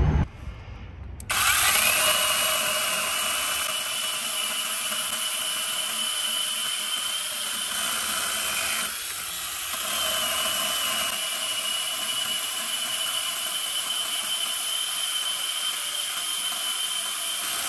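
Battery-powered 8-inch mini chainsaw's electric motor starting up about a second in and running with a steady high whine as its chain cuts through a wooden log. The sound drops briefly around the middle, picks up again, and dies away near the end.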